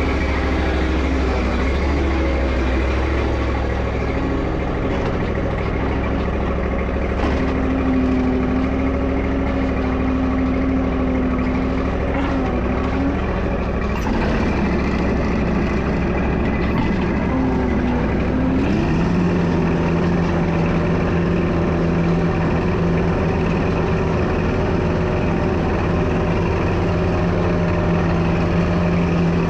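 Lawn mower engine running steadily while mowing. Its note wavers about halfway through, then settles into a steady lower hum for the rest.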